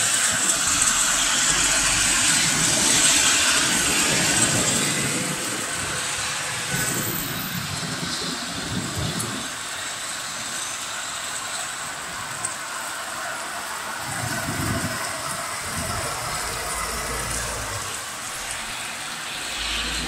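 Heavy rain hissing steadily as the downpour eases off, the hiss slowly growing quieter. Cars now and then swish past on the wet road below.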